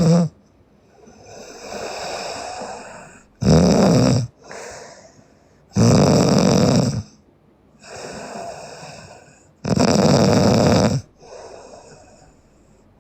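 A sleeping young woman snoring loudly: three loud snores, each about a second long, spaced a few seconds apart, with softer breathing sounds between them.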